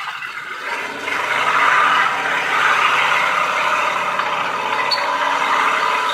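Recorded sound of a Chrysler Multibank tank engine accelerating, played through a small 3 W speaker in a scale model tank. The engine note swells about a second in and then runs on steadily at higher revs, thin and without deep bass.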